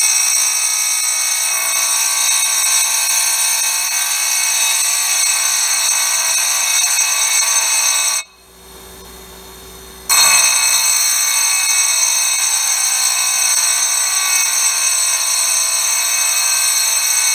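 Abrasive dressing stick held against a spinning grinding wheel, making a loud, steady grinding with many high-pitched tones as it roughs a 45-degree angle on the wheel's edge before crush dressing. About eight seconds in it stops for about two seconds, leaving only a low machine hum, then starts again until near the end.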